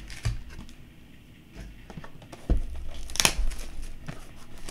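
Cellophane wrapping being crinkled and torn off trading card blaster boxes, in short scattered crackles. A dull thump comes about two and a half seconds in, then a sharp crackle just after.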